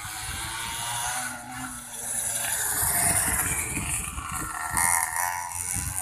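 Mini motorbikes (pocket bikes) running on a track, their small engines buzzing and revving up and down in pitch, swelling louder as they pass about midway and again near the end.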